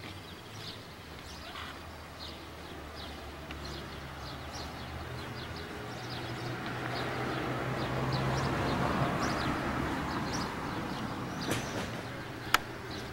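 Outdoor ambience of small birds chirping again and again, over a low engine hum with a rushing noise that swells to its loudest a little past the middle and then eases, like a passing vehicle. A single sharp click comes near the end.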